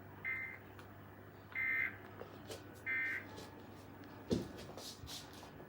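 Emergency Alert System end-of-message data bursts: three short, harsh digital buzzes about a second and a half apart, closing a severe thunderstorm warning on weather radio. About four seconds in, a sharp thump is followed by a few faint clicks.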